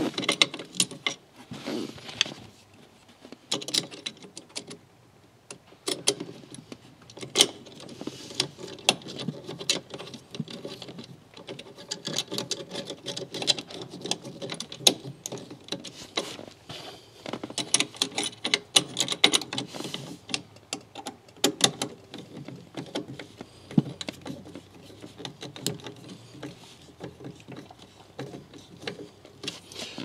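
Irregular clicks, taps and rattles of small metal parts being handled: screws and a screwdriver working against an aluminium e-brake pedal cover as it is bolted onto the pedal.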